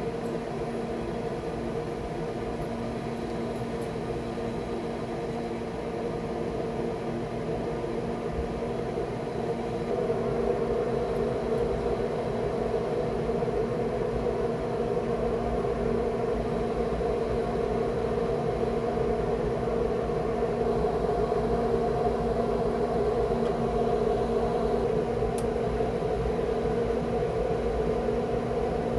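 Recteq Bull 700 pellet grill running on low with its fan producing a steady hum. The hum carries a few steady tones and gets a little louder about ten seconds in.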